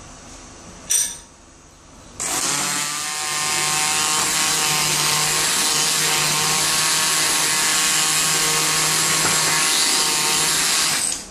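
Electric hand blender switched on about two seconds in and running steadily for about nine seconds, churning curd with ground roasted peanuts into a smooth mix, then cutting off abruptly just before the end. A short knock sounds about a second in.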